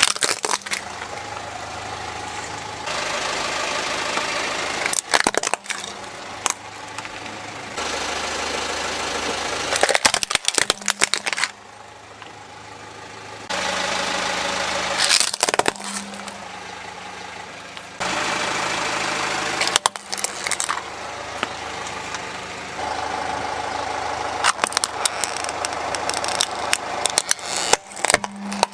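Plastic toy trucks cracking and snapping as a car tyre rolls over and crushes them, in several separate bursts of sharp cracks. Underneath runs the steady hum of the car's engine idling.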